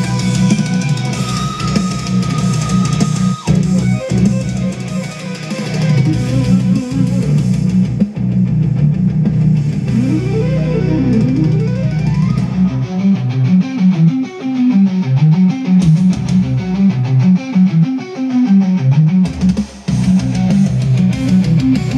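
Heavy metal music with electric guitar and drums played through a 1979 Practical Wireless Winton stereo amplifier and a pair of bookshelf speakers, with crackle on one channel from a dirty volume control. The treble dulls about eight seconds in and comes back near the end as the treble control is turned.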